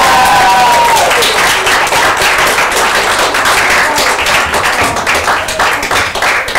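Audience applause, many hands clapping. A high drawn-out whoop falls away about a second in. The clapping thins toward the end into separate claps.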